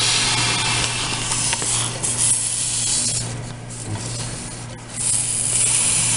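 Paper towel scrubbed hard over a hose fitting, a rough hiss in two long stretches with a short lull about halfway through, over a steady low hum.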